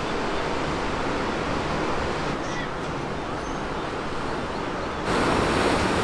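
Ocean surf breaking and washing over a rocky shore, a steady rush of waves that gets louder about five seconds in.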